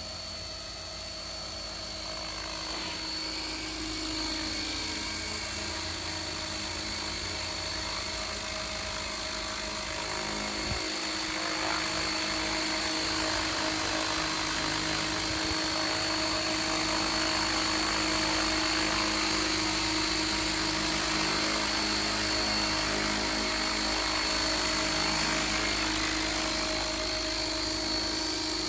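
Radio-controlled scale Gazelle helicopter on T-Rex 600 mechanics in flight: a steady whine from the motor, main rotor and fenestron tail fan, growing louder over the first few seconds and then holding level.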